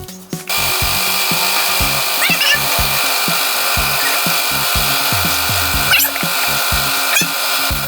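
A power tool switches on about half a second in and runs steadily at high speed, with a faint high whine and a few brief squeaks as it works against a part, over background music with a steady beat.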